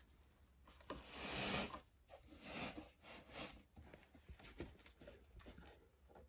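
Handling noise from a subwoofer cabinet being gripped and tipped over: irregular rustling and scraping, the loudest about a second in, with a few light knocks. The woofer itself is not playing.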